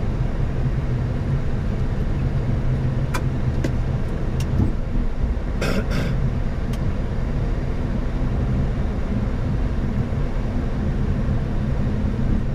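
Boeing 737 MAX flight deck with its CFM LEAP-1B engines idling on the ground after start: a steady low hum and rush of engine and air-conditioning noise, with a few brief clicks about three and six seconds in.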